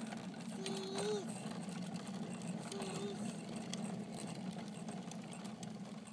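Hard plastic wheels of a Little Tikes Cozy Coupe ride-on toy car rolling over asphalt, a steady rattling rumble. Two short steady tones come through, about a second in and about three seconds in.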